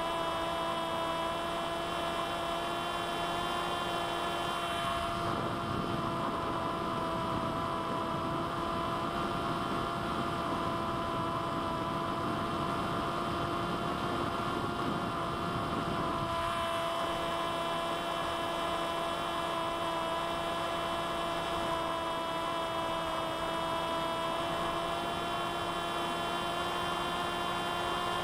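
Electric motor and propeller of a C1 Chaser 1200 mm flying wing, heard through the onboard camera, running with a steady whine at an even cruise pitch. From about five seconds in to about sixteen seconds in, wind noise rushes over it.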